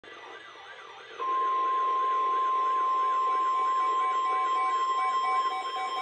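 Weather radio receivers sounding a flood warning alert together: a warbling siren, then about a second in the steady 1050 Hz NOAA Weather Radio warning tone comes in loud, and a few seconds in a receiver adds a rapid, even beeping.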